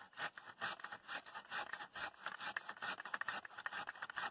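Hand pole pruning saw (curved blade on a telescopic pole) sawing through a branch at the trunk, in quick, repeated rasping strokes.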